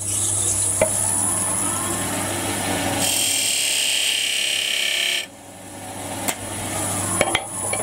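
Wood lathe running with a steady motor hum and a thin high whine. From about three to five seconds in, a skew chisel cuts a small groove into the spinning wooden box, a hissing scrape that stops abruptly; a couple of light clicks follow near the end.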